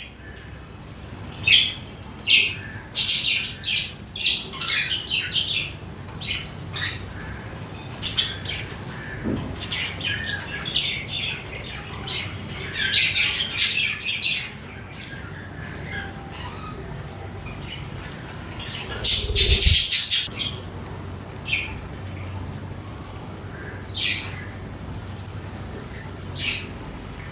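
Pet budgerigars chirping and squawking in short, high-pitched calls that come in irregular flurries, with the loudest flurry about two-thirds of the way through.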